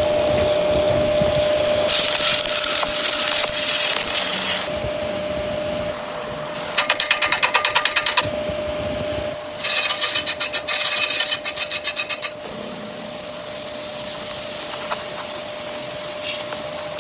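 Metalworking tool noise in short cut-together clips: a steady grinding rasp, then two stretches of fast, rhythmic scraping strokes, over a steady hum.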